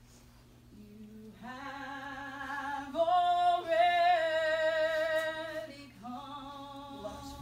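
A woman singing solo without accompaniment, in long held notes with vibrato; the loudest and longest note starts about three seconds in and is held for nearly three seconds.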